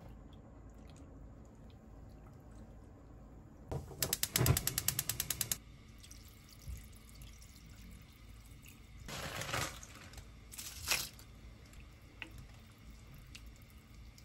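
A rapid run of sharp clicks, about ten a second, lasting a second and a half about four seconds in. Later, water is poured from a measuring jug into a pot of kimchi stew, with a second short splash soon after.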